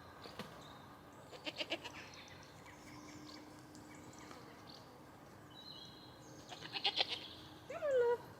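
A goat gives a short falling bleat near the end. Before that come two brief bursts of rapid crackling, like leaves being handled or crunched.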